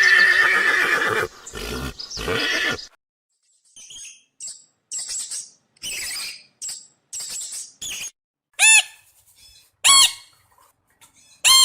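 A string of animal calls: a long loud call at the start, then a run of short high chirps, then three loud short squeaky calls about a second and a half apart.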